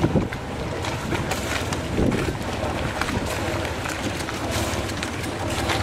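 Wind buffeting the microphone, a steady rushing with frequent flutters, over faint indistinct voices of onlookers.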